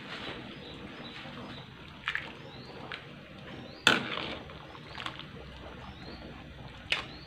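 A metal ladle stirring shrimp and vegetable soup in a metal wok, the broth sloshing, with sharp clinks of the ladle against the wok about two, four and seven seconds in; the one about four seconds in is the loudest. A steady low hiss runs underneath.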